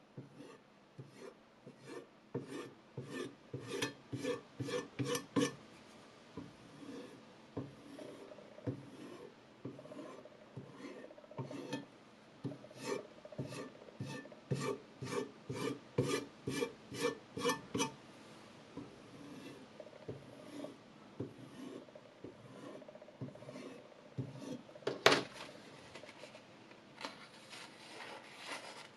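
A flat sharpening stone, held by hand, is rubbed in short rasping strokes along the steel edge of a clamped chef's knife. The strokes come about three to four a second in runs of several seconds. Near the end there is one sharp click, then the rustle of a paper towel wiping the blade.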